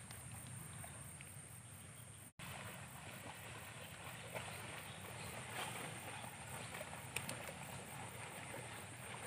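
Faint, steady outdoor background noise: a low rumble with a thin high hiss, a few soft clicks, and a very short dropout about two seconds in.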